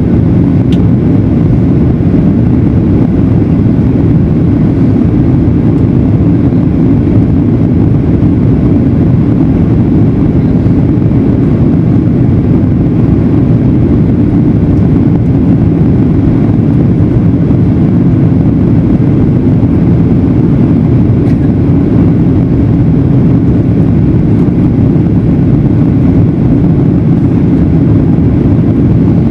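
Steady, loud low roar of jet airliner noise, unchanging throughout.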